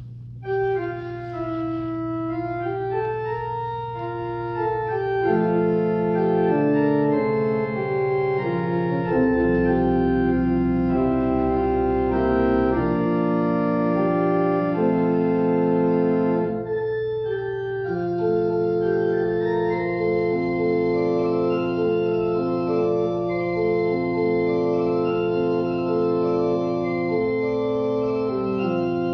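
Church organ playing the postlude at the end of the service: slow held chords with a moving melody above, a deep pedal note joining for a few seconds near the middle, and a short break about seventeen seconds in.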